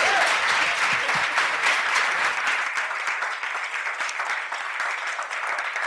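Audience applauding: many hands clapping in a dense, steady patter that gradually thins out toward the end.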